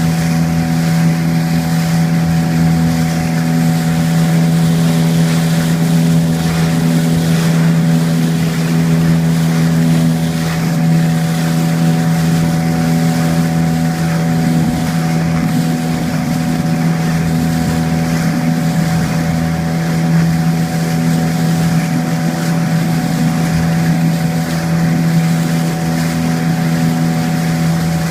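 A boat's engine running steadily at an unchanging pitch, with wind and water noise around it.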